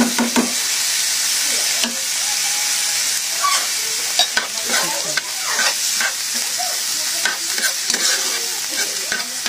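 Sliced mushrooms, garlic and onion sizzling in butter in a non-stick frying pan, with a steady hiss and a metal spoon scraping and clicking against the pan as they are stirred.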